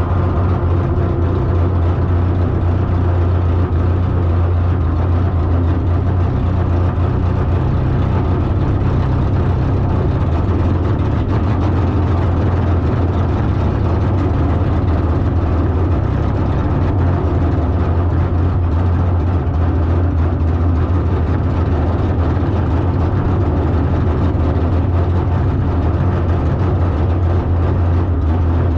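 A car engine running steadily at a constant speed with a deep, even hum, its pitch not rising or falling.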